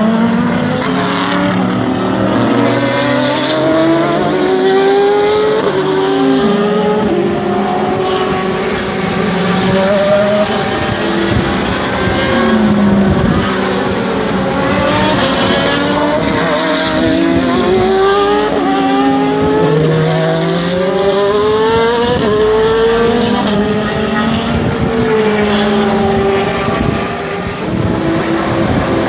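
Several endurance race cars running past together, their engines revving up and down through gear changes, with overlapping engine notes rising and falling throughout.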